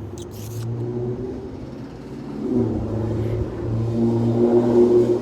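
A car engine running, its steady drone swelling louder about halfway through and again near the end.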